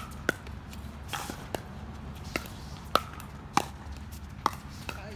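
Pickleball rally: the sharp, hollow pock of paddles hitting a plastic pickleball, about eight hits and bounces in quick, uneven succession.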